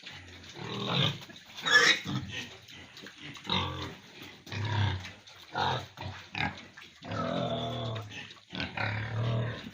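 Pigs grunting and squealing in a pen: a run of short calls, one sharp squeal about two seconds in, and longer drawn-out grunts near the end.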